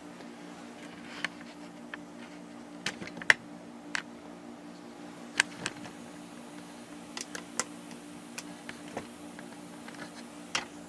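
Scattered light clicks and taps of tools and wires being handled during soldering, irregular and a dozen or so in all, over a steady low hum.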